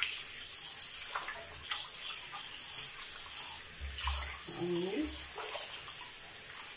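Tap running steadily into a ceramic washbasin while a sponge scrubs the wet bowl, with water splashing off the hands and sponge.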